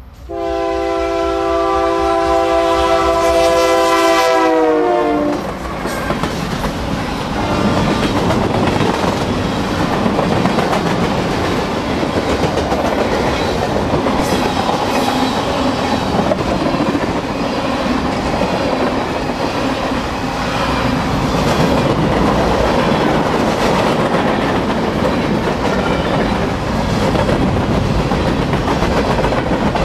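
Union Pacific diesel freight train passing close by: the locomotive's air horn sounds one long chord that drops in pitch as the locomotive goes by about five seconds in. After that, the steady rumble and clatter of freight cars rolling past.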